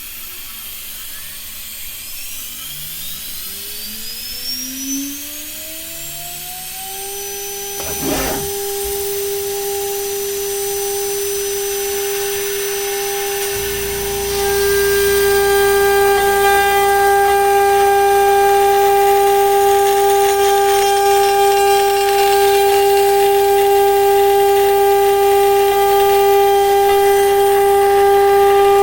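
CNC router's automatic-tool-change spindle spinning up with a rising whine that levels off into a steady high whine after about five seconds. There is a sharp click shortly after. About halfway through it grows louder, with added hiss and extra whining tones.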